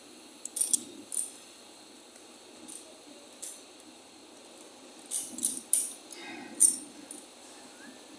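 Irregular sharp metallic clinks and taps, like metal tools or parts being handled and set down: a few in the first second or so, then a quicker cluster about five to seven seconds in.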